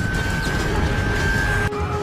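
Film score music over a dense low rumble, with held tones that break off and change abruptly near the end.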